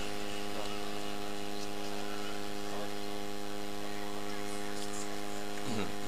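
Steady electrical mains hum from the live sound system: a buzzing drone made of many steady tones stacked one above the other, holding an even level throughout.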